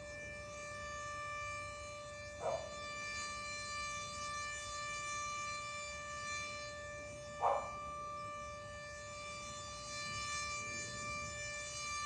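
Super Sirex outdoor warning siren sounding a steady, unwavering tone with a rotator that the owner says is broken. Two brief falling chirps cut in over it, about five seconds apart.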